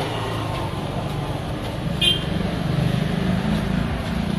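A motor vehicle engine running close by, a steady low rumble that swells a little in the second half, with a short high-pitched beep about two seconds in.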